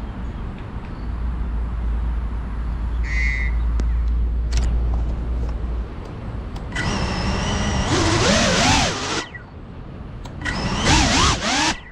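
Motors of a GEPRC CineLog35 cinewhoop FPV drone spinning up in two short bursts while it sits on the grass, the pitch rising and falling with the throttle and cutting off abruptly each time. A crow caws once about three seconds in.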